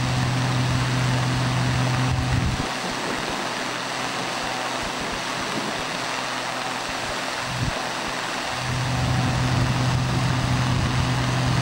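Steady machinery running noise with a low hum that cuts out about two and a half seconds in and comes back about eight and a half seconds in.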